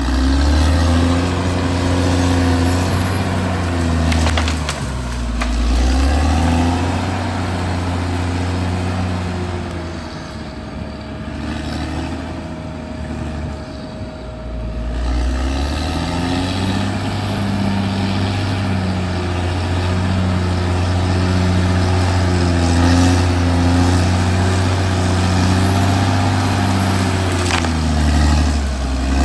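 Caterpillar D6R XL bulldozer's diesel engine working under load, its pitch dropping and climbing again several times as the throttle and load change. A thin steady whine runs alongside it until about halfway through.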